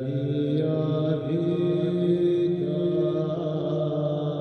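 Slow chanted music: long held notes that step to a new pitch every second or so.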